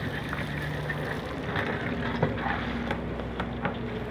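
Fish pieces deep-frying in a wide karahi of hot oil, a steady sizzle, with a few short clicks in the second half as a metal spatula knocks against the pan.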